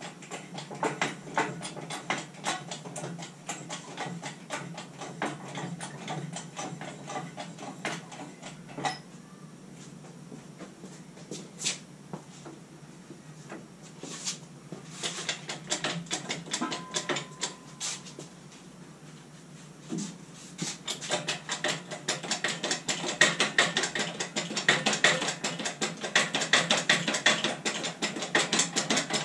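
The lifting gear on a DIY steel gantry crane being worked to take the slack out before a 4,900-pound lathe is lifted. Dense, rapid clicking and light metal knocks, thinning to a few separate knocks for a stretch in the middle and picking up again near the end.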